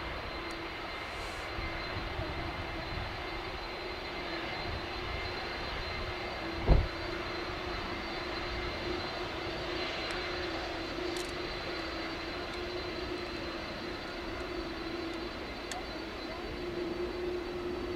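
Airbus A330-300 with Rolls-Royce Trent 700 engines taxiing at low thrust: a steady engine hum and faint high whine as the airliner rolls slowly by. A single short thump sounds about a third of the way through.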